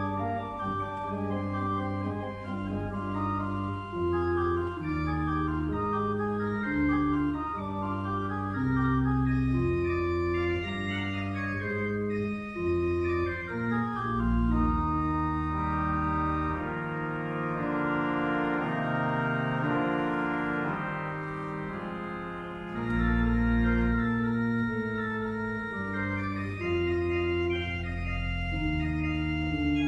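Pipe organ playing a chorale prelude: a moving line of notes over held chords, with deep pedal notes sustained beneath.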